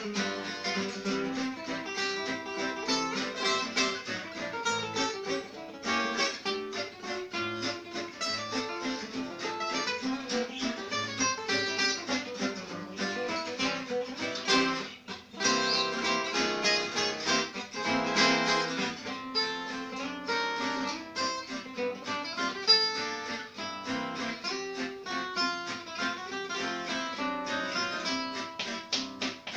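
Two acoustic guitars, one a Selmer-style gypsy jazz guitar, playing a French waltz together: a plucked melody over strummed chords, with a brief drop in loudness about halfway through.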